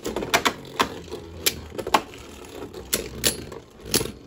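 Two Savior Valkyrie Beyblades spinning in a clear plastic stadium, their steady whir broken by sharp, irregular clicks as the tops clash, about a dozen in a few seconds.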